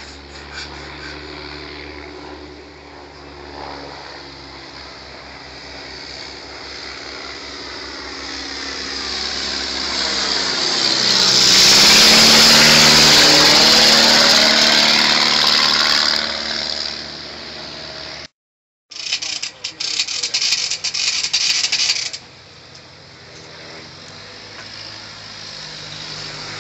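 Light biplane's piston engine flying overhead. It grows louder to a close pass about twelve seconds in, its pitch dropping as it goes by, then fades. After a brief cut, a few seconds of rough rushing noise, then a quieter engine running.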